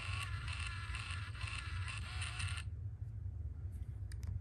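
Hasbro 2007 I-Dog robotic toy dog giving out a high-pitched, raspy electronic sound mixed with the mechanical whir of its moving ears. The sound cuts off sharply about two and a half seconds in, and a few light clicks follow near the end as a finger touches the toy.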